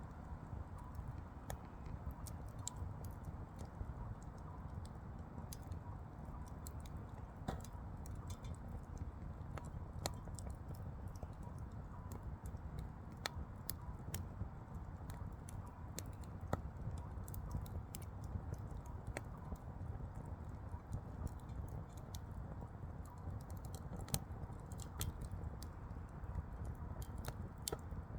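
Firewood burning, crackling with irregular sharp pops over a steady low rumble of the flames.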